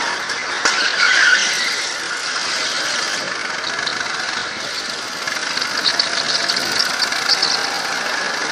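Go-kart engine running at speed with the tyres squealing in short bursts through the corners, once about a second in and several times around six to seven seconds in, heard from a helmet-mounted camera.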